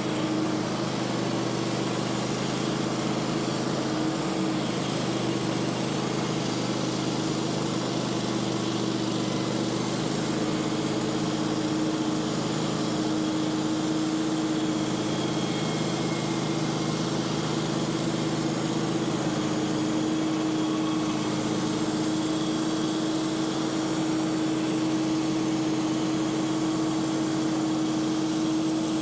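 Wood-Mizer portable sawmill's engine running at a steady speed, with an even hiss over the top.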